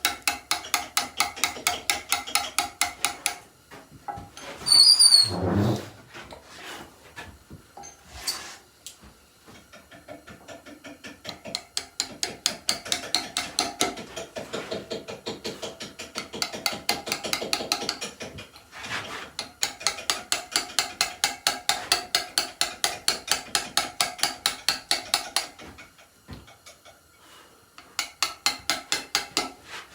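Steel chisel being struck rapidly with a mallet to cut letters into a stone headstone, about five blows a second, in runs separated by short pauses. There is also a brief, loud, high squeak about five seconds in.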